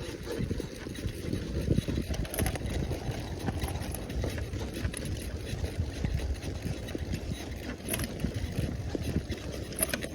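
Wind buffeting the microphone on a moving bicycle: a low, uneven rumble with scattered small clicks and rattles.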